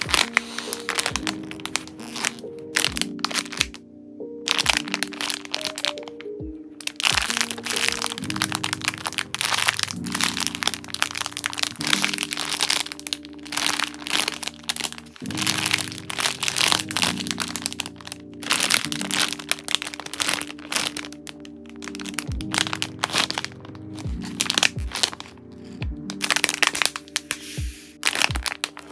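Clear plastic packaging bags crinkling and crackling in quick, irregular rustles as hands squeeze and turn squishy toys inside them, over soft background music with sustained chords.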